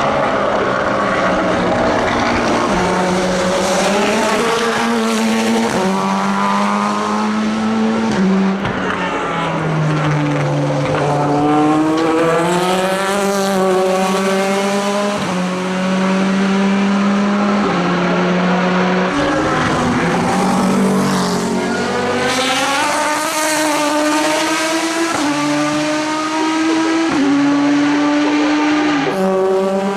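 Racing car engines at full throttle, several cars in succession, their pitch climbing and dropping sharply again and again as they shift up through the gears.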